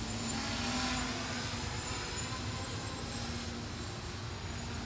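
DROCON Bugs 3 brushless quadcopter flying, its propellers giving a steady whirring hum that swells briefly about a second in, over a low rumble.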